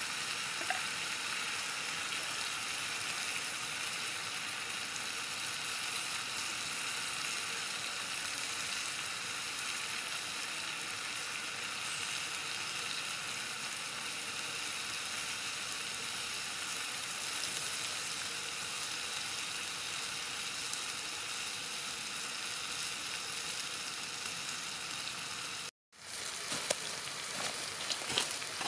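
Split tire track eels sizzling on a hot stone slab over a wood fire, a steady hiss. Near the end the sound cuts out for a moment and comes back with a few faint crackles.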